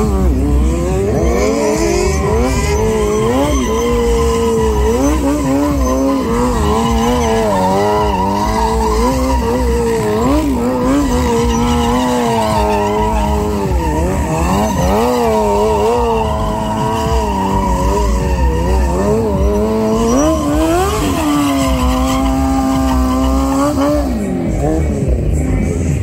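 Kawasaki sport bike engine revved hard and held high through a burnout, its pitch rising and falling over and over as the rear tyre spins and squeals.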